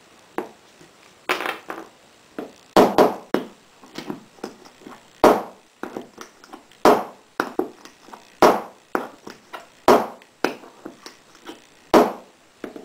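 Small metal pistol-loading parts (a loading block, a metal cup and lead bullets) handled on a table, clicking and clinking against each other in an irregular run of sharp taps, several of them loud.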